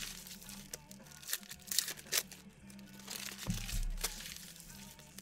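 Trading cards and card-pack wrappers being handled: a run of short crinkling, rustling noises.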